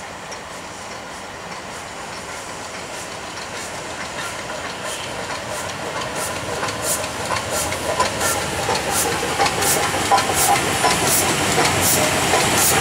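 LMS Class 5MT 4-6-0 steam locomotive running slowly past with a steady hiss of escaping steam, growing louder as it approaches. From about halfway a regular ticking, roughly twice a second, comes in from the moving wheels and motion.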